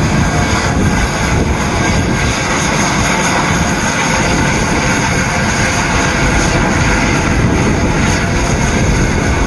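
Mount Washington Cog Railway steam locomotive working hard up a steep grade, its exhaust and escaping steam making a loud, steady rushing noise.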